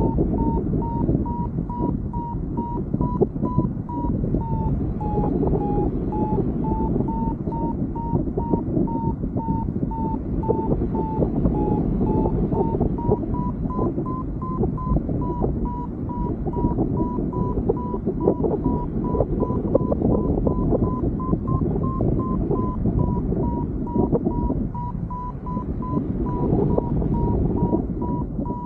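Paragliding variometer beeping in quick, even pulses, its pitch wandering a little up and down; a climb tone that signals rising air. Heavy wind rush on the microphone runs beneath it.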